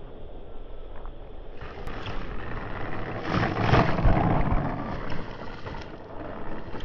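E-flite P-47 Razorback RC model plane landing on grass and rolling out. A rushing noise swells about halfway through and then dies down.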